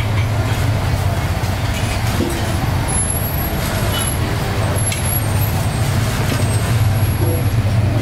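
Steady low rumble of motor vehicle traffic, running without a break.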